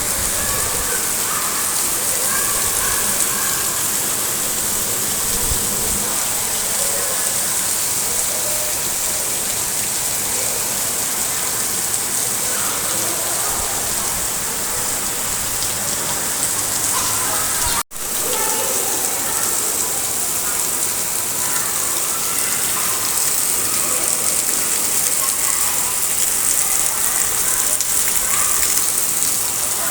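Heavy rain pouring down in a steady hiss, with gusts of strong wind. The sound drops out for an instant about 18 seconds in.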